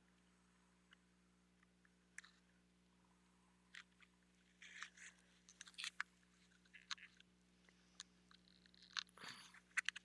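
Faint crackling, scraping and small clicks as a pen is forced into a tight spot in a craft project tray. They come sparse at first, then busier, and are loudest near the end.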